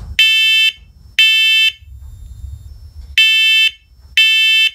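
A 10-year talking smoke and carbon monoxide alarm sounding its horn on test in the three-beep smoke-alarm pattern: two loud, piercing half-second beeps, a pause of about a second and a half, then two more beeps.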